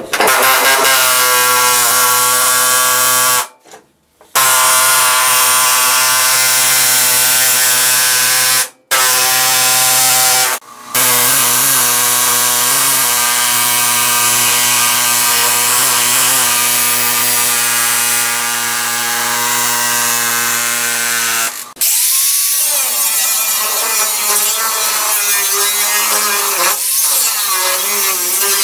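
Pneumatic air chisel hammering through a rusty sheet-steel car floor pan. It makes a steady buzzing rattle, broken by a few short pauses. About 22 seconds in, the sound changes to an angle grinder cutting the steel, its pitch wavering as it bites.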